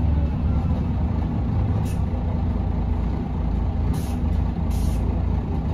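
Mercedes-Benz O405NH bus heard from inside the cabin, its engine and driveline running steadily under way. Brief high hisses of air come three times, about two, four and five seconds in.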